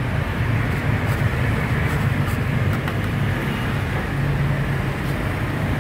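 Steady low motor hum under a noise haze, with a few faint scrapes and taps of metal spatulas on the frozen ice cream pan.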